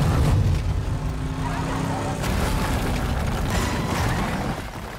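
A heavy vehicle crashing down stone steps: a dense, loud low rumble with scattered bangs and knocks, and an engine tone that drops away about two seconds in.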